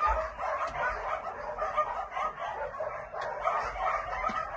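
A pack of dogs barking and yapping at once, a continuous din of many overlapping barks.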